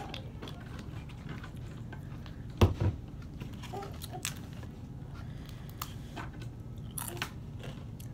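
A glass hot sauce bottle set down on the table with a single loud thud, among light clicks and rustles of handling food. Near the end come sharp crunches of a crisp tostada shell being bitten.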